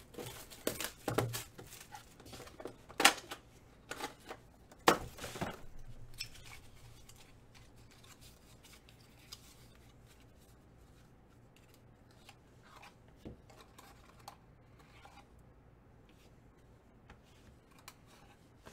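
A Panini Spectra basketball card pack being opened: a run of sharp ripping and rustling sounds over the first several seconds, loudest about three and five seconds in, then only faint occasional clicks as the cards are handled.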